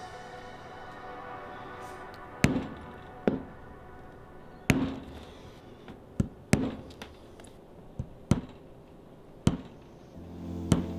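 A metal leather-stamping tool struck with a maul to impress a pattern into a carved leather sheath: about ten sharp knocks at irregular spacing, the first about two and a half seconds in. Background music plays underneath.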